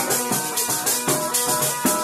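Calabrian zampogna bagpipe playing a tarantella over its steady drones, with a tamburello's jingles beating out a quick, even rhythm.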